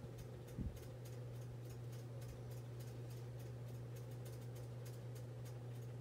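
Faint room tone: a steady low electrical hum with quick, irregular faint ticking, and one soft low thump about half a second in.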